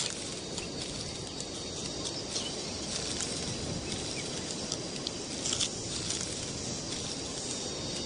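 Outdoor natural ambience: a steady noisy background with faint, steady insect-like high tones and scattered soft taps and rustles.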